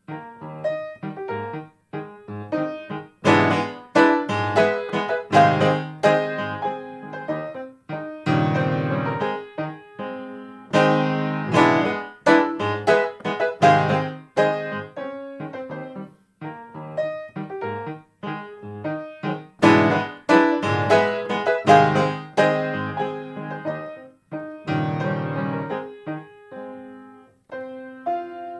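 Solo TOYO A-25 grand piano playing a Viennese waltz in E-flat major, phrases of chords and melody with short breaks between them.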